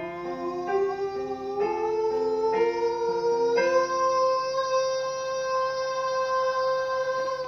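A singer's voice doing a breath-length vocal exercise, holding one vowel that climbs slowly in pitch over accompanying chords that change about once a second. About three and a half seconds in, it settles on a long, steady high note held for about four seconds.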